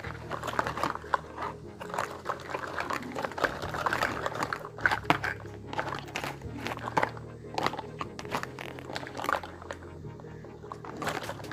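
Toy kitchen set being unboxed by hand: irregular crinkling of packaging and small clicks and taps of little pieces being handled, over soft background music.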